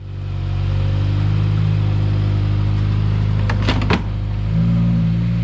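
A car engine running steadily with a low, even note. A few sharp clicks come around two-thirds of the way in, and the engine note steps up slightly soon after.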